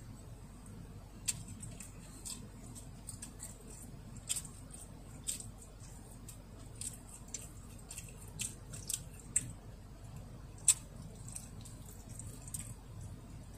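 Scattered small sharp clicks and ticks at an uneven pace, the loudest about three-quarters of the way through, over a low steady hum inside a car cabin.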